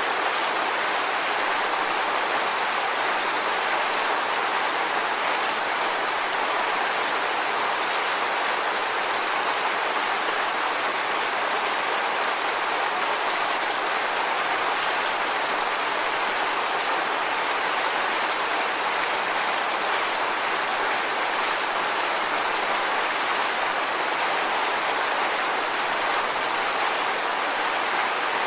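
Waterfall rushing in a steady, unbroken hiss, heavier in the upper range than in the bass.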